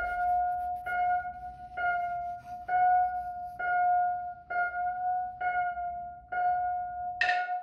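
Background music: a single high note struck over and over, about once a second, with a brighter, fuller strike near the end.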